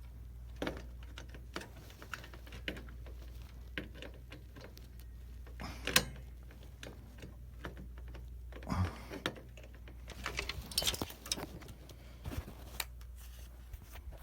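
Scattered light clicks and knocks of computer parts being handled as a CPU cooler fan is fitted onto a motherboard, over a low steady hum.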